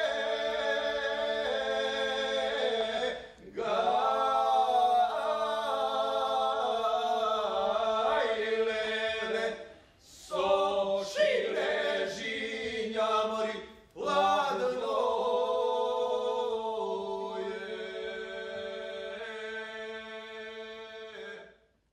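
Three male voices singing a Macedonian folk song a cappella in close harmony, holding long chords. The singing breaks off briefly three times between phrases, and the last phrase dies away near the end.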